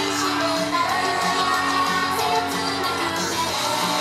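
Upbeat Japanese idol pop song at a live stage show: female singing over a backing track with a steady beat.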